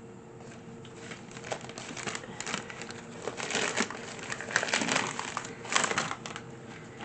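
Shipping packaging crinkling and rustling in irregular bursts as a mailed box of comics is opened and handled.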